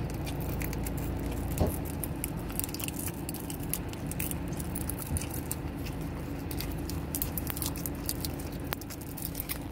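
Fingers picking and twisting at a salad dressing bottle's cap and its plastic shrink-band seal: a run of small plastic crinkles and clicks over a steady low hum.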